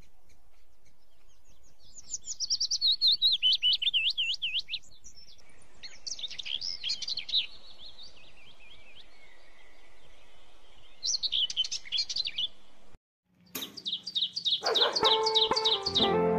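Bird song: several phrases of quick, high chirps separated by pauses. After a short silent break another series of chirps starts, and background music comes in near the end.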